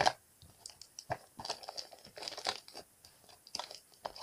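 Hands handling small makeup items and their packaging: irregular crinkling and rustling with light clicks and taps, as things are squeezed into a storage container that is nearly full.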